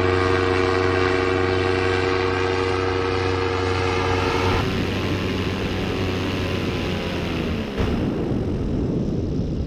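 Paramotor engine and propeller running with a steady drone; about halfway through it turns noisier and its pitch falls away.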